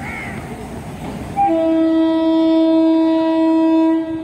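Indian Railways train horn sounding one long steady blast of about two and a half seconds, starting about a second and a half in.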